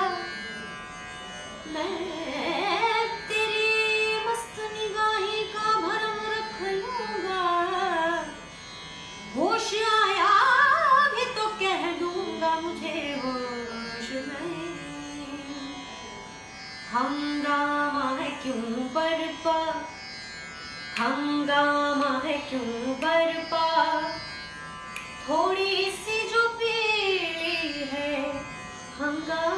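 A woman singing a ghazal in ornamented phrases, with pitch glides and long held notes and short pauses between phrases, over a faint steady drone accompaniment.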